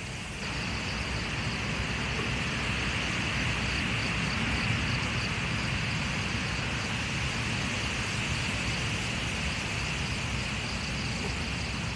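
Strong wind blowing steadily, with a low rumble from gusts buffeting the microphone and an even rushing hiss.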